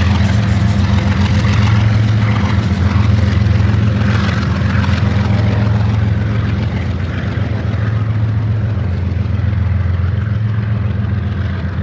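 Steady low drone of a BNSF GE diesel locomotive's engine as the train pulls away, easing off slightly about halfway through.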